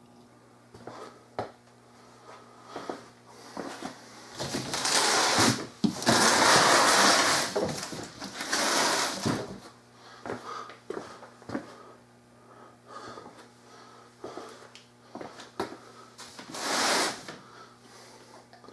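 Cardboard box of Greenworks pressure washer parts being handled and shifted on a concrete floor: long scraping, rustling stretches in the middle and again near the end, with scattered knocks and clunks of the plastic parts inside.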